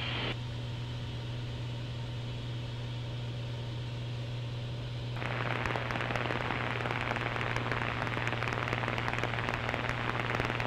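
Crackling static from an aircraft's primary VHF comm radio, cutting in about five seconds in and running on over a steady low hum: the tuned weather frequency is carrying no broadcast, because the airport's weather station is off the air.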